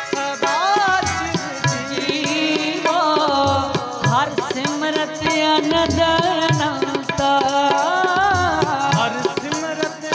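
Sikh kirtan: a harmonium holds the melody and drone under an ornamented sung line with gliding notes, while a tabla keeps a rhythm of deep bass strokes and wooden kartal clappers click along.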